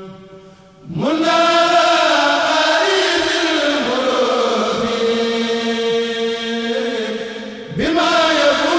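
Men's voices of a Mouride kourel chanting a khassaid (Sufi religious poem) without instruments, in long held, gliding notes. The chant breaks off briefly just after the start, resumes about a second in, and a new phrase begins near the end.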